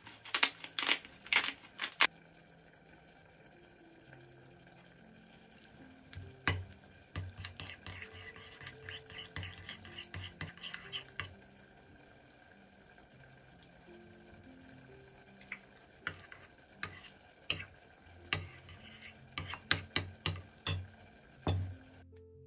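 Metal spoon stirring Greek yogurt and chopped basil in a ceramic bowl, clinking and scraping against the bowl. Sharp clinks come in the first couple of seconds, a run of stirring comes in the middle, and more clinks come near the end.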